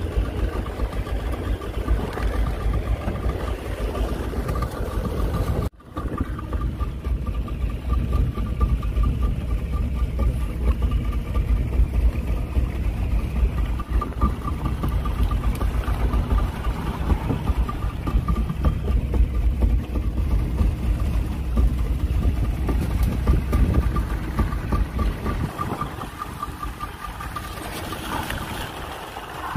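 Small fishing boat's outboard motor running steadily under way, a heavy low rumble with a pulsing high whine over it. The sound cuts out for an instant about six seconds in.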